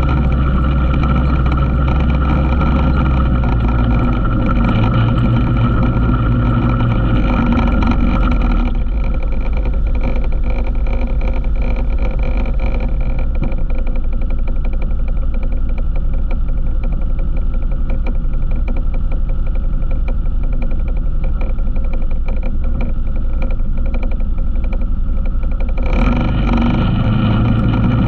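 ATV engine running steadily while riding. The engine note drops to a lower, softer run about nine seconds in and picks back up near the end.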